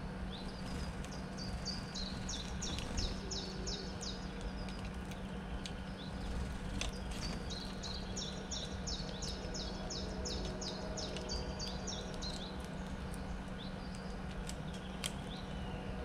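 A songbird singing twice, each song a quick run of repeated high notes lasting three to four seconds. A steady low hum and a few faint clicks sit underneath.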